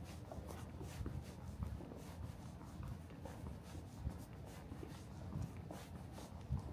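Soft, uneven footsteps and rustling close to the microphone over a steady low city rumble.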